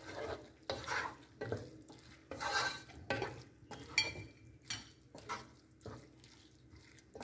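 Wooden spatula stirring and scraping a thick onion-tomato masala around a large metal pot, in repeated uneven strokes, with a sharper knock against the pot about four seconds in.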